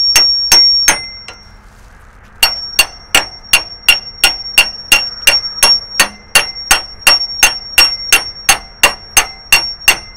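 Hammer blows on a steel pickle fork wedged behind a leaf-spring fastener, driving the fastener out: rapid metal-on-metal strikes with a high ring, about three a second. They pause briefly about a second in, then carry on steadily.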